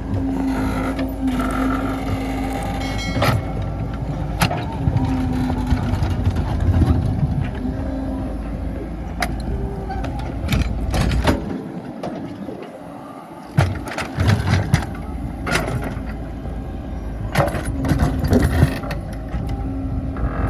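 Excavator working against a large stone: a motor runs with a steady whine under a low rumble, with repeated sharp clicks and knocks. It goes quiet for a moment around the middle and starts again with a knock.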